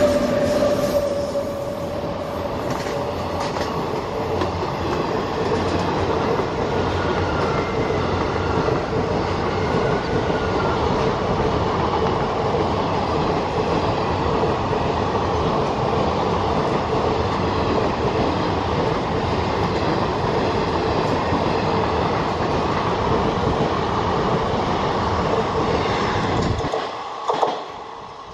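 Passenger express train of ICF coaches passing close by at speed, wheels clacking over rail joints in a steady loud rumble. A held horn note fades in the first second or so. Near the end the rumble drops away suddenly.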